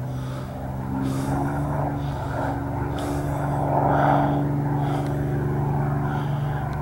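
Engine drone of a single-engine propeller fighter plane flying overhead, steady, with a slight rise in pitch about a second in. It is loudest about four seconds in as the plane comes closer.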